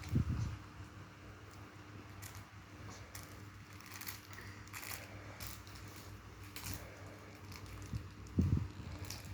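Faint rustling and crinkling with scattered light clicks, over a steady low hum. A short, low thump comes near the end.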